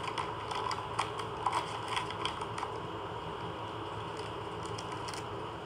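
Light, irregular tapping clicks like typing, most frequent in the first three seconds and sparser after, over a steady low background hum.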